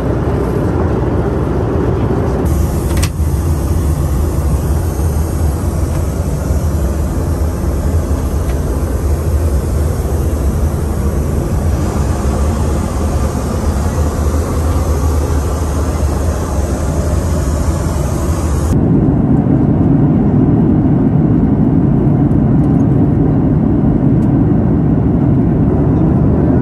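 Steady in-flight cabin noise of a Boeing 737-800. A few seconds in it turns to a higher hiss over a low hum, with one click, as heard inside the aircraft lavatory. Near the end it turns to a deeper, louder rumble at a window seat over the wing.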